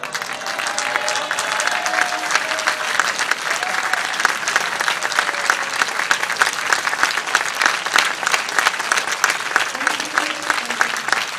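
Tennis crowd breaking into loud applause, with dense clapping that builds over the first couple of seconds and then holds, and a few voices calling out. It follows the point that wins the championship.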